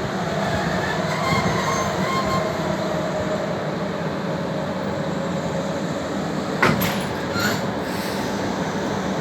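Train running past at a rural station: a steady rumble of wheels on rail, with faint wheel squeal in the first couple of seconds and two sharp knocks about two-thirds of the way through.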